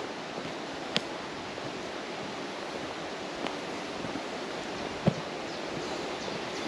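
Steady rush of wind, with two short sharp clicks, one about a second in and one about five seconds in.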